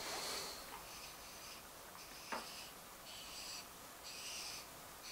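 Faint, soft swishing of an aluminium disc being slid and turned by hand on a granite surface plate, repeating about once a second, with a single light click about two seconds in.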